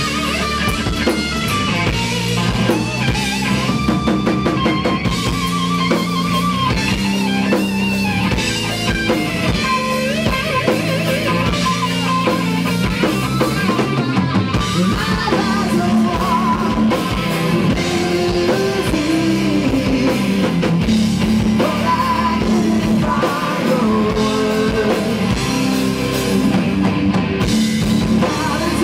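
Rock band playing a song: electric guitar and electric bass over a drum kit, with a wavering melodic line on top.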